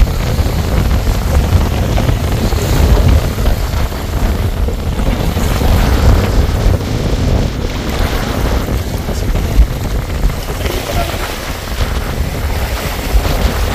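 Wind buffeting the microphone: a loud, unsteady low rumble.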